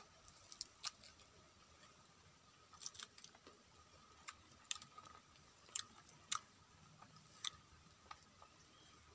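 A person chewing a mouthful of rice and fish eaten by hand: scattered soft mouth clicks and lip smacks over a faint steady high tone.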